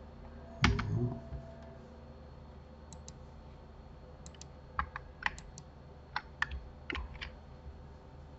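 Computer keyboard and mouse clicks: a dull thump a little under a second in, then scattered sharp key clicks, many in quick pairs, through the middle and later part, over a faint steady hum.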